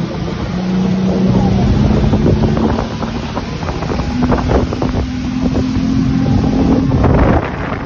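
Speedboat engine running at cruising speed, its drone shifting up in pitch partway through, with wind buffeting the microphone.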